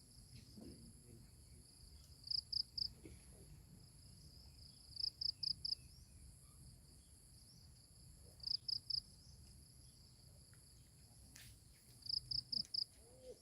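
Insects calling: one gives short groups of three or four high chirps, four times, about every three seconds, over a steady high-pitched insect whine.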